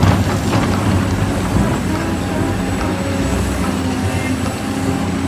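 Caterpillar 385C hydraulic excavator's diesel engine running steadily while the machine digs.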